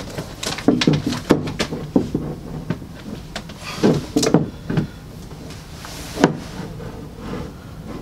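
A wooden skateboard deck being handled and set upright against a wall: a run of knocks, taps and scrapes of the board against the wall and table, with a sharper knock about six seconds in.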